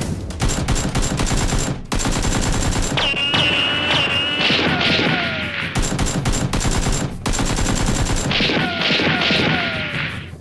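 Rapid automatic gunfire, dubbed over a Nerf-blaster firefight, fires almost without pause. It breaks off briefly just before two seconds in and again about seven seconds in. High ringing tones and falling whistles sound over the shots in two stretches.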